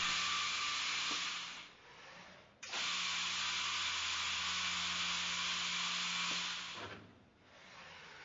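GANNOMAT Vantage 76 line boring machine's drilling unit running with a steady hum and hiss. It dies away about two seconds in, starts again abruptly a second later, runs for about four seconds and then dies away again.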